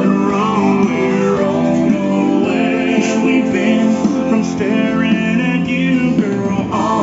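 A song with male singing and guitar playing through a Harley Electra Glide's stereo speakers, driven by a newly fitted mini amplifier.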